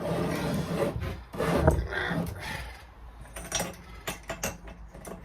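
Small engine parts being handled and fitted by hand: two long scraping rubs, then a run of light clicks and taps.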